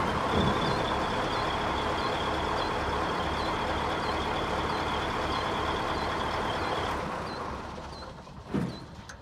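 Caterpillar 988B wheel loader's diesel engine idling with an even low pulse and a steady high whine. About seven seconds in, the whine stops and the engine sound dies away as it is shut down, with a single clunk near the end.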